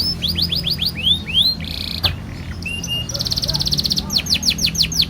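Domestic canary singing a fast, varied song: quick runs of high whistled sweeps, a short buzzy note, then a very rapid rolled trill about three seconds in, followed by more sweeps.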